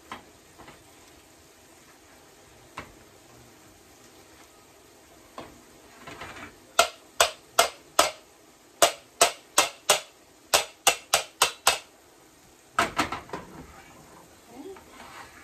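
A wire potato masher being pushed down into potatoes in a stainless steel pot, knocking against the pot's bottom in a string of sharp metallic clanks, about three a second for around five seconds from about seven seconds in. A short burst of clanks follows near the end.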